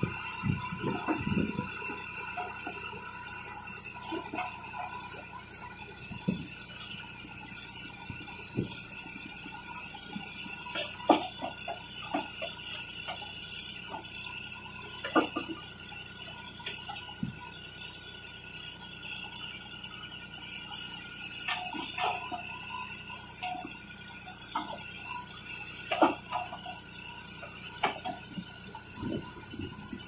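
John Deere 5310 diesel tractor running steadily while it powers a tractor-mounted backhoe digging in sand, with a steady hydraulic whine. Sharp clanks and knocks from the boom and bucket come several times as the arm moves and the bucket digs.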